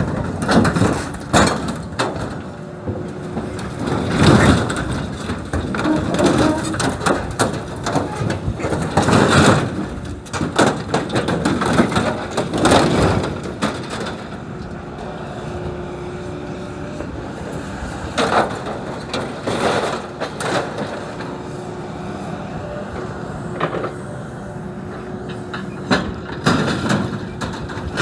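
Excavator running steadily while it tears apart and crushes old farm machinery: repeated loud crunching and cracking of metal, heaviest in the first half and again near the end.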